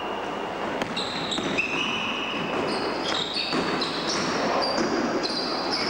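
Basketball players' shoes squealing again and again on the gym court floor, short high squeaks at shifting pitches. A sharp knock comes about a second in.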